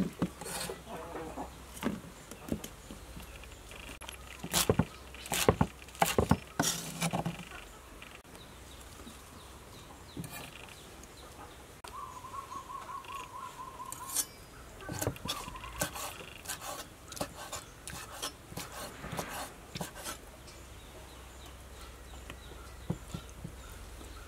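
Scattered knocks and taps of food and utensils being handled on a wooden table and cutting board, loudest in a cluster a few seconds in. A short, pulsing bird trill sounds around the middle.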